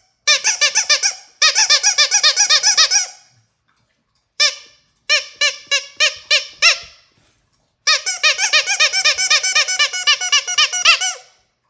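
Squeaky dog toy squeezed over and over in fast runs of about six squeaks a second, each squeak a short squeal that rises and falls in pitch. It pauses twice, about three and seven seconds in.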